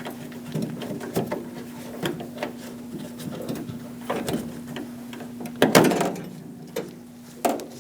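Hands working inside a van's rear door cavity: scattered small clicks, taps and rattles as the door lock actuator's electrical connector is worked loose, with a louder clatter about six seconds in, over a faint steady hum.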